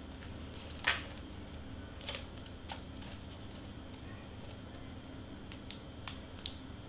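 Cardstock pieces and foam tape being handled and pressed down on a work surface: a few scattered light clicks and taps, the sharpest about a second in, over a steady low hum.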